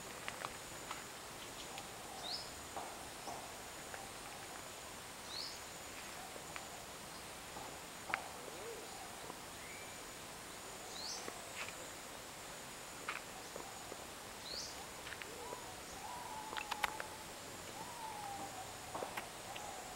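Tropical rainforest ambience: a steady high insect drone with short bird whistles every few seconds, and a few lower calls near the end.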